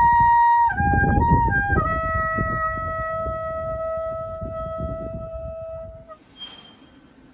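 Shofar (ram's horn) being blown. A high note breaks off into a few short notes, then one long lower note is held for about four seconds and fades out.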